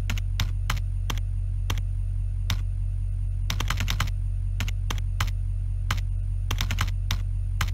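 Typing on a computer keyboard: irregular key clicks with a couple of quick runs of keystrokes, over a steady low hum.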